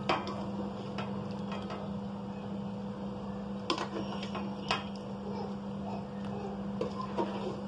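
A serving spoon clinks and taps against aluminium pots while chicken-and-potato curry is ladled onto a layer of boiled rice: a few sharp clicks near the start, two more around the middle and a faint one near the end. Under it runs a steady low electrical hum.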